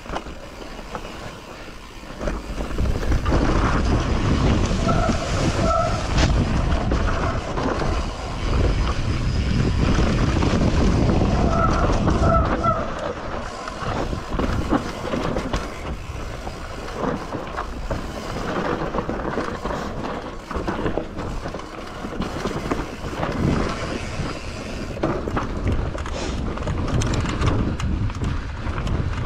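Mountain bike ridden fast down a rough trail: tyres rumbling over dirt and rock, with the chain and frame rattling. A couple of brief squeals come about five and twelve seconds in.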